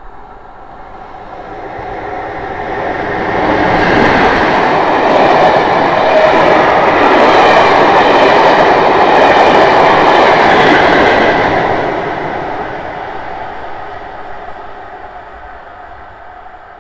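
Class 47 diesel-hauled passenger train passing at speed: the locomotive's Sulzer twelve-cylinder diesel engine comes in loud, then the coaches run past with the noise of wheels on rail. It builds over the first few seconds, stays loud for about seven seconds, and fades away near the end.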